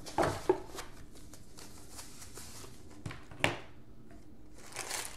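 Tissue paper and plastic packaging rustling in a box as hands handle it: a few short rustles and clicks, the sharpest about three and a half seconds in.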